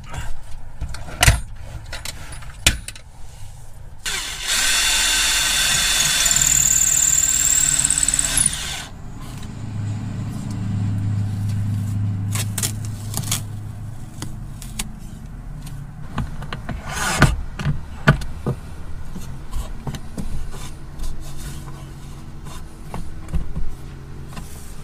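Power drill running in two spells, first a loud run with a high whine, then a lower, steadier drone, while driving fasteners to fit handles into a wooden bed rail. Scattered sharp knocks and clicks come in between.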